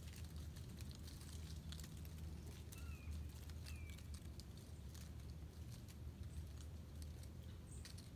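Quiet outdoor ambience: a steady low rumble of wind on the microphone with scattered faint clicks. About three seconds in come two short falling bird chirps, less than a second apart.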